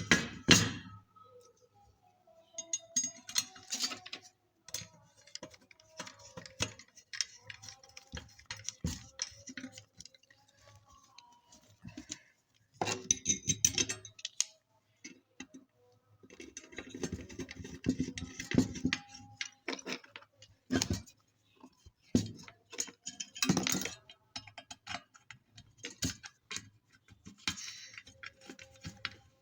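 Irregular clicks, taps and metallic clinks of small hand tools and iron parts being handled during the repair of an electric clothes iron, with denser flurries of rattling now and then.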